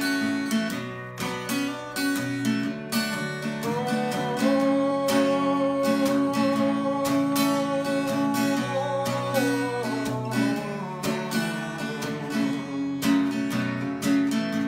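Acoustic guitar strummed in a steady rhythm, with a long held vocal note over it from about four seconds in, lasting some six seconds.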